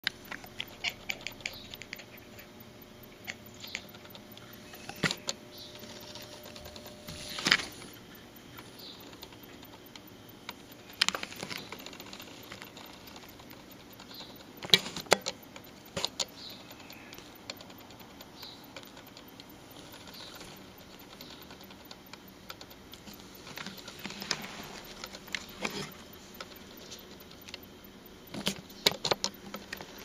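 A cat making scattered quick clicking sounds, some in short rapid runs near the start and again near the end, with a few louder clicks between.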